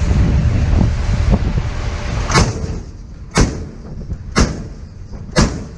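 Naval deck gun firing single shots at a steady rate of about one a second, four sharp reports starting about two and a half seconds in, over rumbling wind and sea noise.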